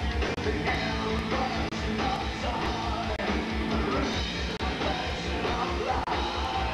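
Gothic rock band playing live: a steady drum beat under guitars, with singing.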